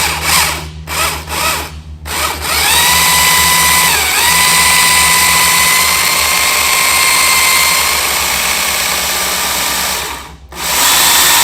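Work Sharp Ken Onion Edition electric belt knife sharpener being switched on with its trigger. The motor and belt give several short blips, then run steadily with a whine for about eight seconds, with a brief dip in pitch early on. It stops, then starts again for a moment near the end.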